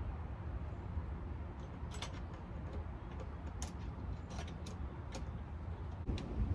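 Scattered light clicks and ticks of hardware and hand tools being handled while fastening the lid, a few irregular clicks over a low steady rumble.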